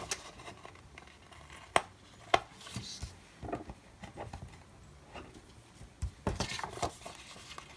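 Quiet handling of a paper planner with metal tweezers: two sharp clicks about two seconds in, scattered soft taps, and a brief rustle of paper as the pages are smoothed by hand near the end.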